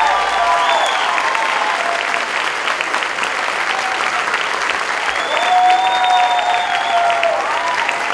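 Large theatre audience applauding steadily, with cheering voices rising over the clapping near the start and again about five seconds in.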